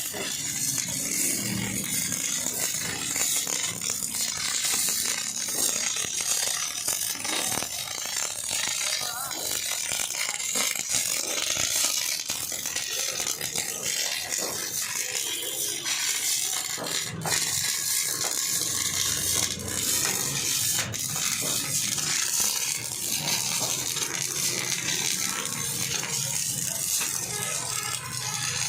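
CO2 MIG welding arc crackling steadily as a weld bead is run, a continuous dense crackle with a few sharper clicks.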